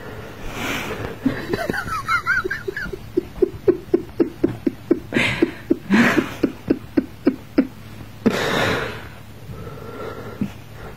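A person laughing in a quick run of short "ha" pulses, about four a second, with a few brief high chirping sounds before the laughter and a loud breathy burst near the end.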